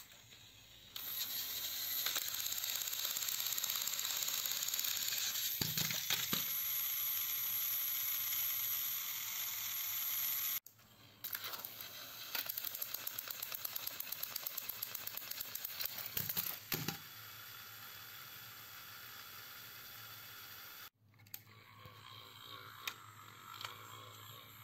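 Battery-powered toy locomotives running: small electric motors and plastic gears whirring, with rapid clicking and rattling from the gears and wheels on plastic track. The sound cuts off and restarts near 10 s and again near 21 s, and is quieter in the last few seconds.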